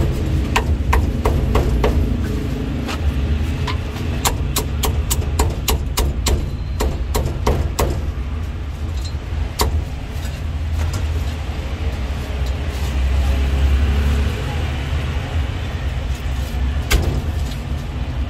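Meat cleaver chopping crispy roast pork on a thick round wooden chopping block: sharp chops, several a second through the first half, then sparser, with a few more near the end. A steady low traffic rumble runs underneath.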